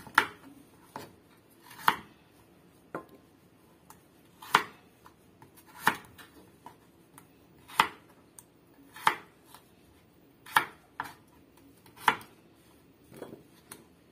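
Kitchen knife slicing a peeled carrot into chunks on a cutting board: about ten sharp knocks of the blade hitting the board, one every second or so at an uneven pace.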